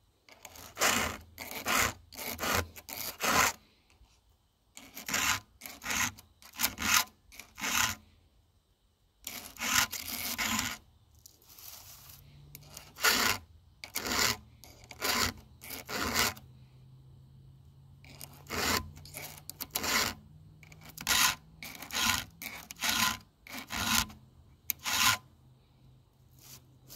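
A 7/32-inch round file rasping across chainsaw cutter teeth in short push strokes, several strokes in a row, then a short pause before the next run of strokes as the file moves on to the next tooth.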